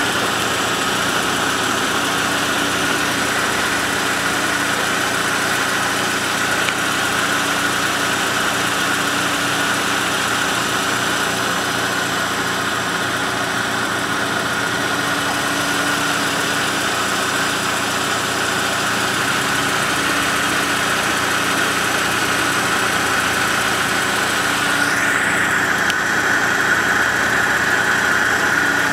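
A 2008 Volkswagen Golf Mk5's 1.6-litre naturally aspirated inline-four idling steadily, heard from beneath the car, with a steady high-pitched whine running through the engine note.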